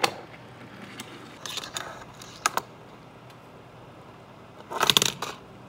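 Small clicks and taps of metal tweezers against the plastic seats of an N scale passenger car interior, with a louder burst of rapid rattling clicks about five seconds in.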